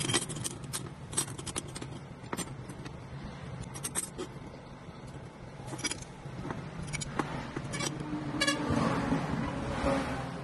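Flat cut steel plates and bars clinking against each other and tapping down on a wooden worktop as they are handled and laid out, a dozen or so sharp clinks. A steady low hum runs underneath, and a rushing noise swells up near the end.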